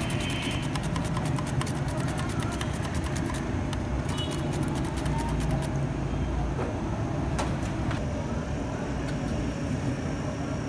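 Cucumber being sliced on a hand mandoline slicer into a plastic colander: rapid, evenly spaced slicing strokes for the first three seconds or so, then a few scattered taps as the slicer is lifted away. A steady low rumble runs underneath.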